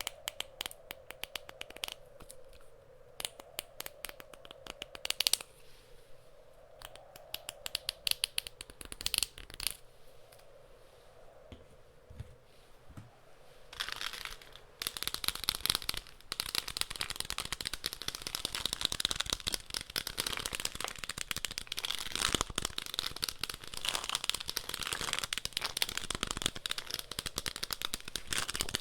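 Rapid close-miked ASMR tapping and scratching with fingers and nails on objects, over a faint steady wind sound. About halfway through the tapping turns denser and louder, into a continuous crackling scratch.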